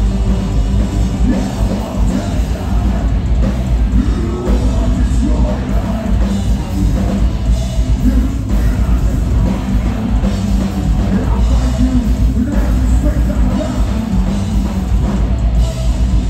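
Metalcore band playing live at full volume: distorted electric guitars, a drum kit and keyboards, with vocals over the top.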